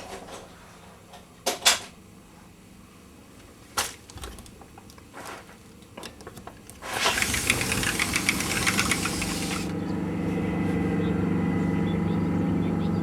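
A few light knocks, then a loud rushing hiss for about three seconds, giving way to the steady low hum of the Nile cruise boat's engine.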